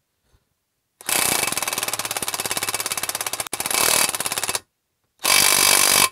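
DeWalt 20V XR brushless cordless impact wrench hammering as it tightens the propeller nut onto a boat's prop shaft: a long run of rapid impacts of about three and a half seconds with a momentary break, then a short burst near the end.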